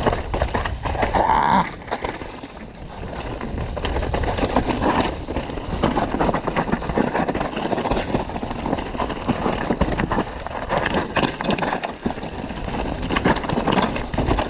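Mountain bike riding down a rough downhill trail: tyres running over dirt and rock, with a constant clatter of rattles and knocks from the bike.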